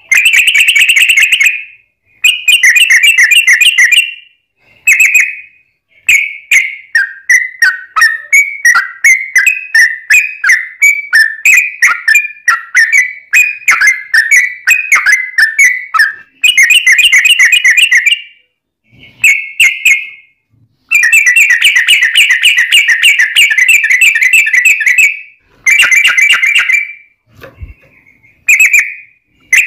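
Yellow-vented bulbul (trucukan) singing loudly: short bursts of rapid bubbly notes, a long run of quick chattering notes in the middle, and a long rolling trill about two-thirds of the way through.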